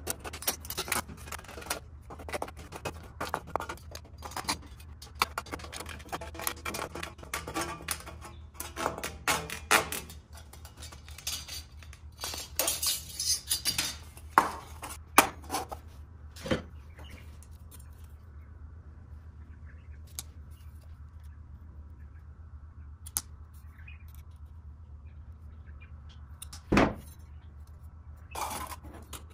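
Aviation tin snips cutting thin sheet metal: a quick run of crisp snips with the sheet clinking and rattling, then the cutting stops and only the occasional metal handling clink is heard, with a single louder knock near the end.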